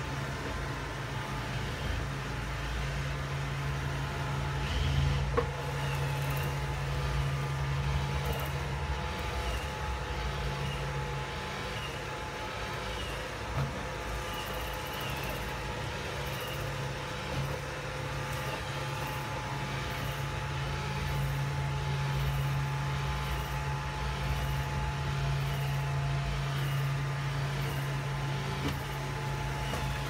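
Roomba 620 robot vacuum running: a steady hum of its motor and brushes with a few thin steady tones over it, and a few brief clicks.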